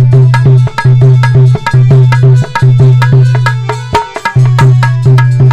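Instrumental music interlude: drums play a fast, steady rhythm over a deep bass note that pulses about twice a second, with a brief break about four seconds in.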